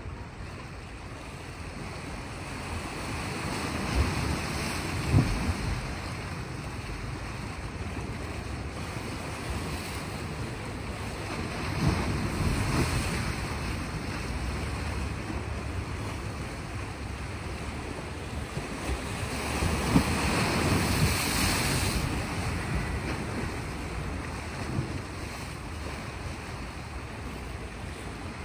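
Small waves washing in on a rocky shore, the wash swelling three times, roughly every eight seconds, with a few sharp splashes on the swells. Wind rumbles on the microphone throughout.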